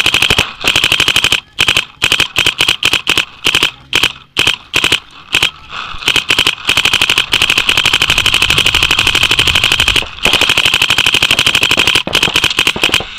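Dye DM12 electropneumatic paintball marker firing rapid streams of shots, short strings at first, then two long unbroken streams lasting a few seconds each.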